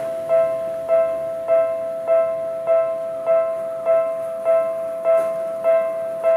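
Japanese railway level-crossing warning bell ringing: an electronic bell tone struck evenly about every 0.6 seconds, signalling that a train is approaching the crossing.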